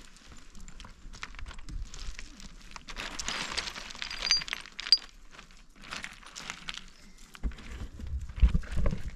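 Dry wild grass and plant stems rustling, crackling and snapping as they are picked and handled, densest about three to five seconds in. A bumpy low rumble comes in near the end.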